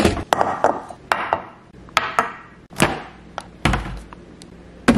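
A dozen or so sharp knocks and clunks at irregular intervals: kitchen items and ingredient containers, such as a plastic vinegar jug, being handled and set down on a granite countertop.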